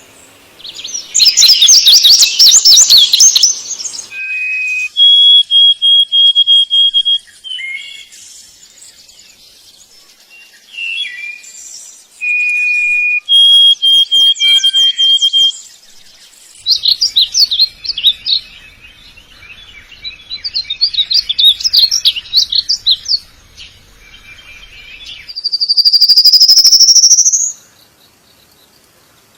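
Male songbird singing to call a mate. Bursts of fast, high trills alternate with long, steady whistled notes, and a long rising whistle comes near the end.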